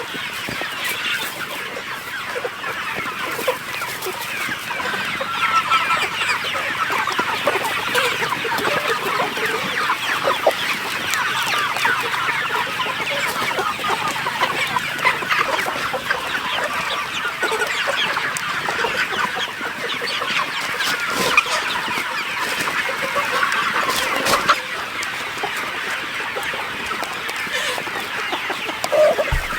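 A flock of chickens clucking and chattering, with many short calls overlapping without a break.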